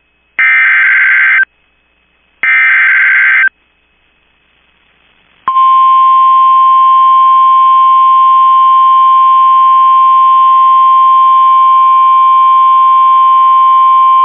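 Emergency Alert System warning signal: two one-second bursts of the SAME header's screeching digital data tones, a pause of about two seconds, then from about five and a half seconds in the long, steady single-tone NOAA Weather Radio warning alarm.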